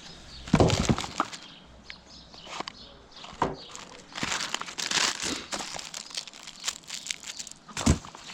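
Rummaging through rubbish: irregular crinkling and rustling of paper and plastic as items are handled and moved, with a thud about half a second in and another near the end.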